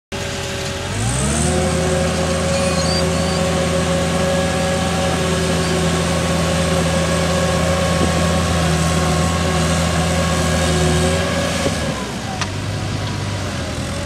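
Caterpillar 216 skid steer loader's diesel engine revving up about a second in, holding steady at high revs while the loader drives, then dropping back to a lower idle near the end.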